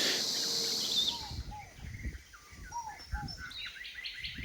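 Insects buzzing with a high steady hiss that stops abruptly about a second and a half in. Then birds call: pairs of short arched notes repeated every second or so, with higher chirps among them.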